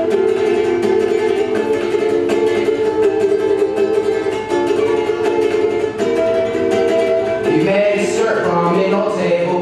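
Ukulele strumming chords in a song's instrumental break. A man's singing voice comes in near the end.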